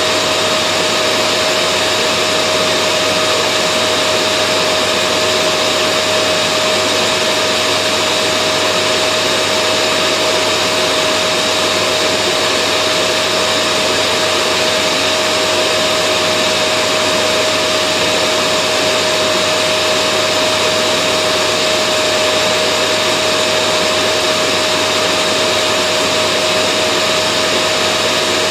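Vacuum cleaner running steadily: an even rush of air with a steady mid-pitched whine in it, unchanging in pitch and loudness.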